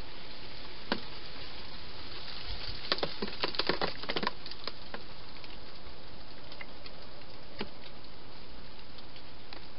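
Sharp cracks and clicks from a foraging wild hedgehog, bunched into a quick crackling run about three to four seconds in, with single clicks before and after, over a steady hiss.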